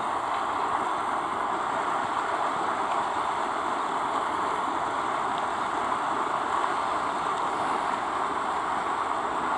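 Big Cottonwood Creek, a fast mountain stream, rushing steadily, heard from a bridge over it: an even, unbroken rush of water.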